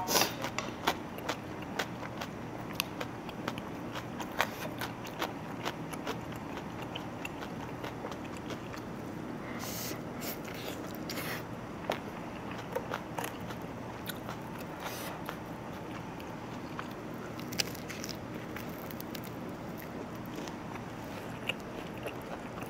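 A person eating fried rice: chewing, with frequent small clicks and scrapes of a spoon against the bowl, over a steady low hum.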